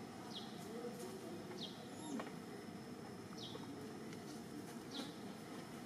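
A bird calling in the background: four short high chirps, each falling in pitch, spaced one to two seconds apart, over a steady outdoor background. A brief click sounds about two seconds in.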